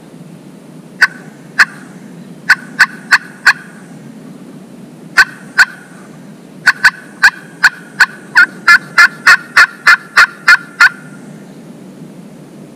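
Wooden turkey box call worked in sharp clucks and cuts imitating a hen: a few single and grouped notes, then a quick run of about fourteen cuts in the second half.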